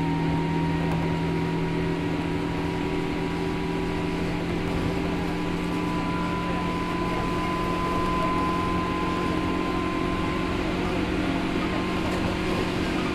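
Running sound heard inside a JR Kyushu 103 series 1500 electric train's motor car: the steady hum of its MT55 traction motors with rumbling underneath, and a higher whine that swells about halfway through and fades a few seconds later.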